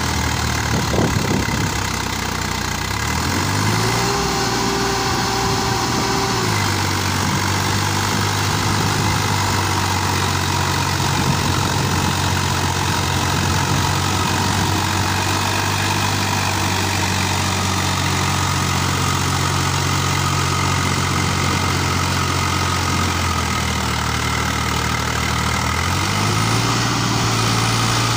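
Swaraj 855 FE tractor's diesel engine revving hard under load as it tries to haul a loaded trailer out of a waterlogged field where it is stuck. The revs climb about three seconds in and hold steady for a long stretch, drop back briefly near the end, then climb again.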